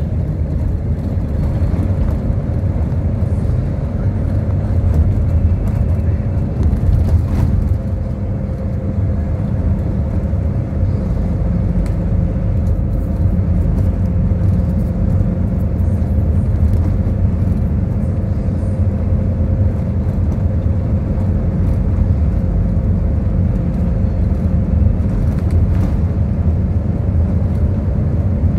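Steady low rumble of engine and road noise inside a moving road vehicle, with a faint steady hum above it.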